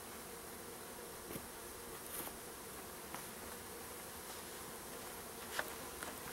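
A swarm of honey bees buzzing steadily around an open hive during a package installation, with a few faint clicks and knocks of hive parts being handled.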